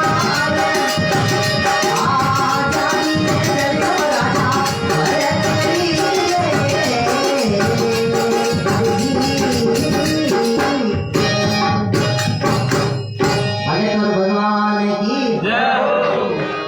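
Rajasthani folk bhajan music: a dholak drum beat with jingling hand cymbals over a melodic line, with the drumming breaking off briefly about eleven to thirteen seconds in before the music carries on.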